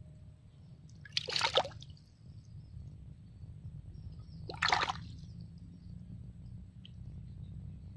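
A hand groping and stirring through muddy water in a small water-filled hole, with two short splashes, about a second and a half in and again about five seconds in.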